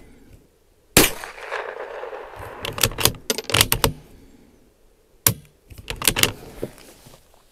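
A shot from a Bergara B14R .22 LR bolt-action rifle about a second in, a sharp crack with a short ringing tail. It is followed by a series of metallic clicks as the bolt is worked, then a second, quieter sharp crack a little past five seconds and more clicks.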